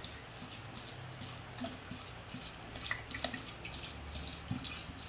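White rice spirit pouring from a glass bottle into a large glass jar of peaches: a quiet steady trickle with a few brief ticks.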